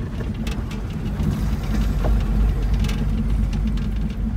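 Vehicle driving over a rough, broken road: steady low rumble of engine and tyres with scattered knocks and rattles.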